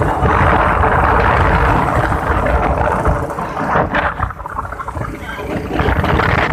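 Wind buffeting the phone microphone while riding a motorcycle, over engine and road rumble; it eases briefly about four seconds in, then comes back as loud.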